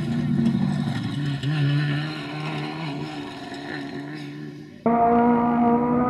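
Fiat Punto Super 1600 rally car's engine pulling away through the gears and fading into the distance, its pitch stepping up and down with the shifts. About five seconds in, an abrupt cut to the engine heard from afar on a gravel stage, holding a steady note.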